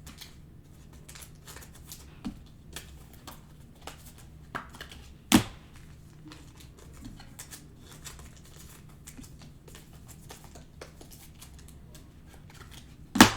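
Trading cards and their packs being handled: faint rustling and small clicks throughout, with a sharp snap about five seconds in and a louder knock near the end.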